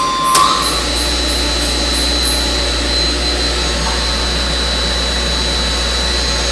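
Star-delta motor starter changing over: a sharp contactor clunk about a third of a second in as the delta contactor pulls in, followed by a steady low mains hum with a thin high whine from the energised contactors and the motor running in delta.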